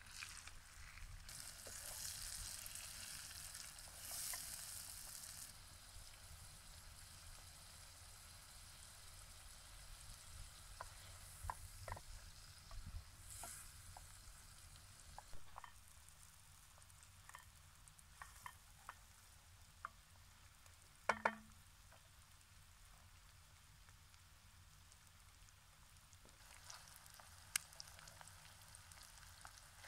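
Potatoes and onions sizzling in a metal pot over a wood campfire, stirred with a wooden spatula that scrapes and taps the pot. The hiss is strongest in the first few seconds. A sharper double knock comes a little past two-thirds through.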